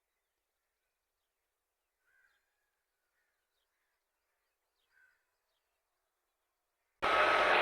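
Two faint short bird calls, about two and five seconds in, against near silence. Near the end a loud, steady mechanical noise with a whine in it cuts in suddenly.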